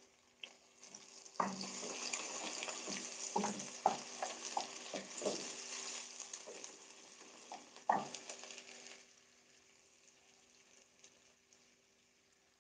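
Chopped onions sizzling in oil in an aluminium pot, stirred with a wooden spoon that knocks against the pot several times. The sizzle and stirring drop away about nine seconds in.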